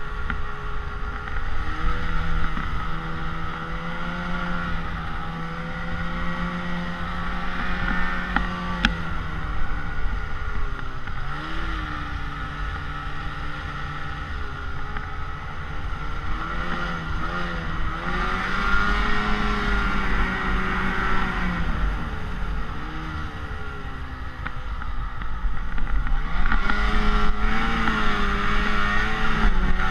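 Snowmobile engine running under way, its pitch rising and falling repeatedly as the throttle opens and eases off, loudest about two-thirds of the way through and again near the end.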